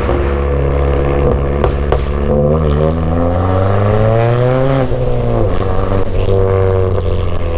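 Straight-piped turbocharged four-cylinder of a tuned 10th-gen Honda Accord under acceleration, with a few sharp cracks in the first two seconds. The engine note rises steadily for about two and a half seconds, drops sharply at an upshift about five seconds in, then pulls on at a steady pitch.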